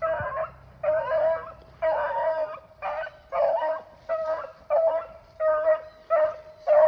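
A beagle hound baying on a rabbit's trail, one steady run of loud bawls at about one and a half a second, all at the same pitch.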